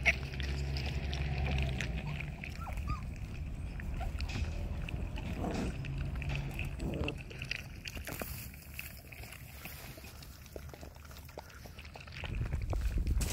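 Young puppies lapping and slurping milk from a bowl: many small wet clicks and slurps, under a low rumble that is strongest at the start and near the end.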